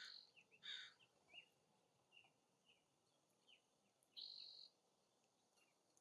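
Faint wild bird calls: two short harsh calls near the start and a longer, flat call about four seconds in, with soft chirps between them.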